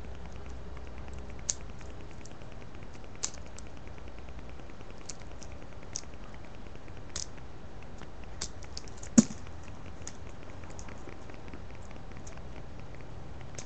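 Scattered small plastic clicks and snaps from a Bakugan Taylean toy being pried and worked open by hand, over a steady low hum. One sharper, louder click comes about nine seconds in.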